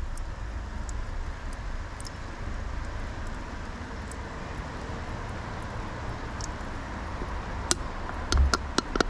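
Steady low rumble of a car driving: road and engine noise. A few sharp clicks near the end.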